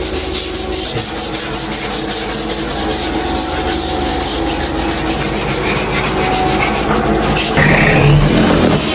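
Sander working over a shower floor: a steady, rhythmic scrubbing. About a second before the end it gives way to a different, slightly louder machine sound with a low hum.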